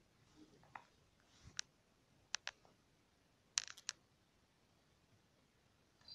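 A few faint, sharp clicks, spaced irregularly, with a quick cluster of three about three and a half seconds in.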